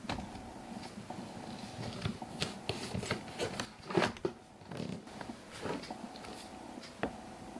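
Soft rustling, scraping and clicking handling sounds, irregular and scattered, with the loudest scrape about four seconds in, over a faint steady hum.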